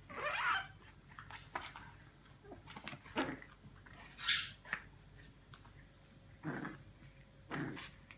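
French bulldog puppies play-wrestling, making short, irregular dog noises every second or so, loudest at the start and about four seconds in.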